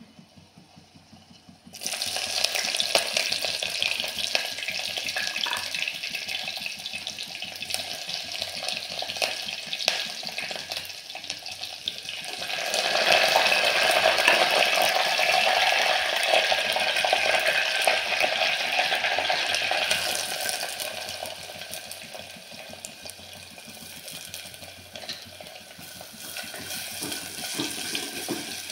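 Hot oil sizzling in a clay pot during a tempering, starting suddenly about two seconds in. It gets louder about halfway through as curry leaves go into the oil, then eases, with a spoon stirring chopped onions near the end.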